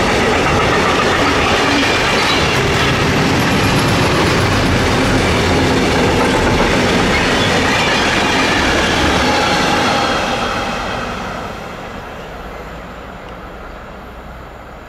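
A freight train of tank wagons rolling past close by, its wheels running on the rails. About ten seconds in the last wagon passes, and the noise falls away and fades.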